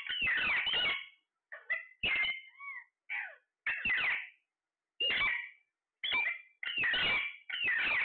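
Alexandrine parakeets squawking: a string of about nine loud, harsh screeching calls, some short and some drawn out to about a second, with brief gaps between them.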